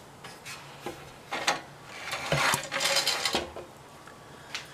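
Metal parts and hand tools being handled, a run of short clinks and knocks that is busiest from about two to three and a half seconds in.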